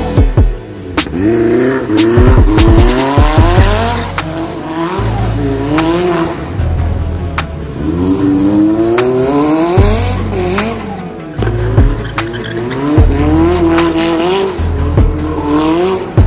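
Drift car engine revving up and down over and over, with tyre squeal and a string of sharp pops and bangs, the kind given off by a flame-spitting exhaust.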